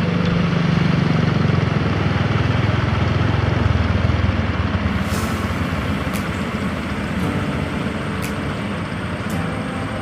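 An engine running, its low hum strongest in the first four seconds and then fading, over a steady wash of noise.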